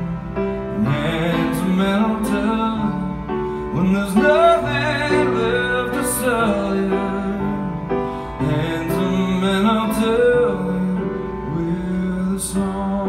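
A man singing a slow ballad with grand piano accompaniment, live, in a few drawn-out phrases over held piano chords.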